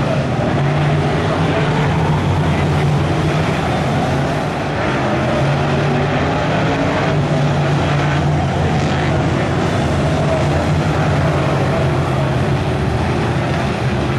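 A pack of BriSCA F1 stock cars racing round the oval, their V8 engines running hard together in a loud, steady drone.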